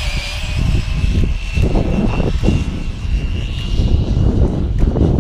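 Brushless electric RC car on a speed run, its motor a steady high-pitched whine, over heavy wind rumble on the microphone.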